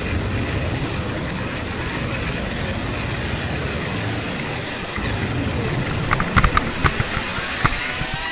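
KTM 530 enduro bike's single-cylinder four-stroke engine running while riding a dirt trail, with a handful of sharp knocks between about six and seven and a half seconds in.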